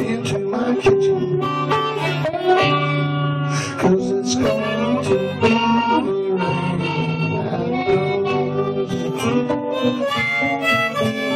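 Blues harmonica played into a microphone cupped in the hands, with held notes and notes bent up and down in pitch.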